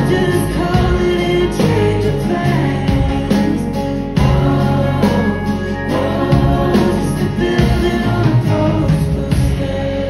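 A live band playing, with electric and acoustic guitars and singing over them.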